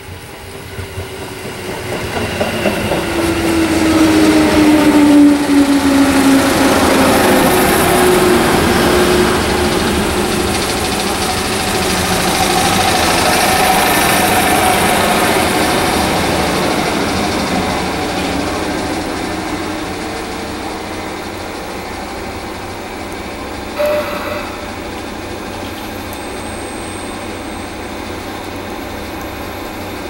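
A JR East 211 series electric train pulls into a station and brakes to a stop. A falling whine and the rumble of wheels on rail grow loud as it passes, then settle to a steady hum as it halts. One brief sharp sound comes about three-quarters of the way through.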